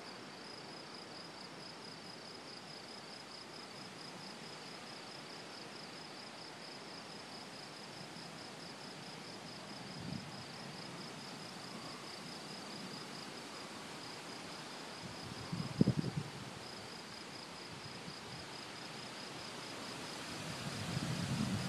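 Crickets trilling steadily in a high, pulsing night chorus. Low rumbles of distant thunder come through: a short one past the middle and one building near the end.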